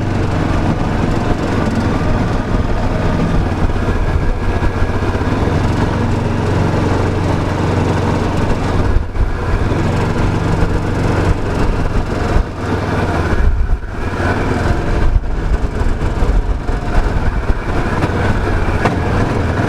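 Small gas-engine water pump running steadily, its single-cylinder engine holding an even pitch while it draws water.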